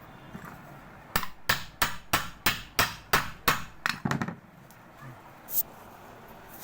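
A hammer striking in a quick, even series of about ten blows, roughly three a second, then one more blow after a short pause. The blows are part of changing a ceiling fan's bearing.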